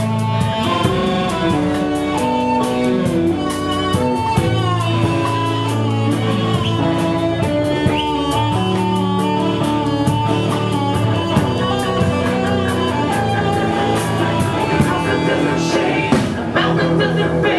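Live rock band playing, with drums keeping a steady beat under held violin and guitar notes.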